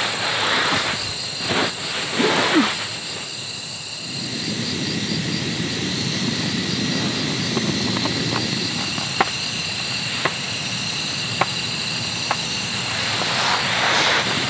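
Crickets chirping steadily, over a low steady rush that swells through the middle. There are a few soft rustles of movement near the start and end, and a handful of light single ticks in the later part.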